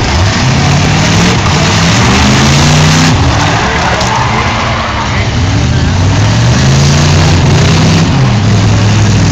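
V8 demolition derby cars revving hard as they push and ram one another, engine pitch rising and falling again and again, with wheels spinning in mud.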